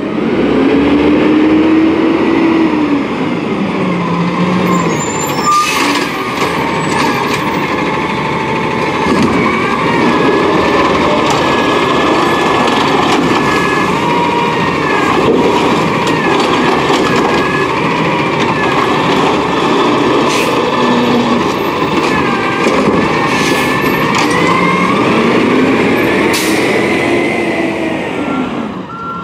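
Peterbilt 320 automated side-loader garbage truck working a cart: the engine revs up and down as the hydraulic arm lifts and empties the cart, with a steady hydraulic whine and several sharp knocks and air-brake hisses.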